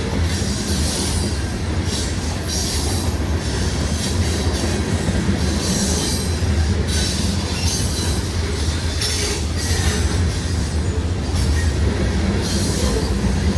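Freight train rolling past: a steady low rumble of wheels on the rails, with high-pitched wheel noise that comes and goes every second or two.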